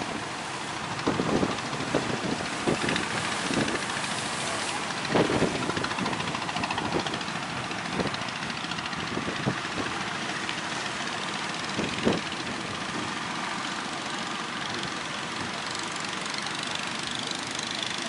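Heavy surf breaking with a steady rushing noise, over the running engines of small outrigger fishing boats. A few low thumps stand out, the strongest about five seconds in and another around twelve seconds.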